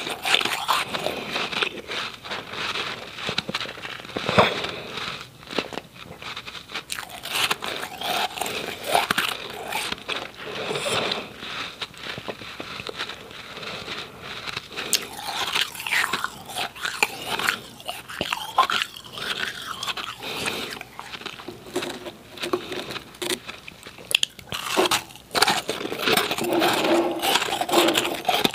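Close-miked crunching and chewing of powdery, refrozen ice cubes, a dense run of irregular crisp crunches.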